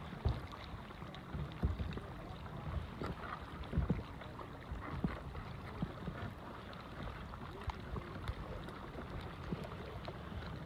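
Water lapping and splashing softly around a kayak, in scattered small splashes and drips over a low steady rumble.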